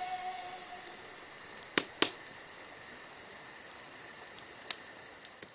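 Wood campfire crackling, with a few sharp pops (two about two seconds in, another near the end), over a steady high trill of insects.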